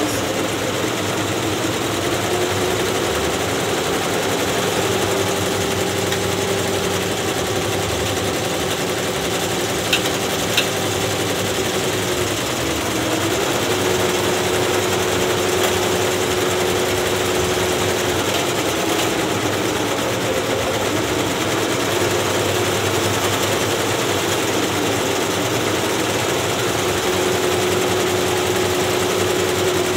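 Multi-head commercial embroidery machines stitching: a steady rapid needle clatter with a hum that dips in pitch now and then. Two sharp clicks about ten seconds in.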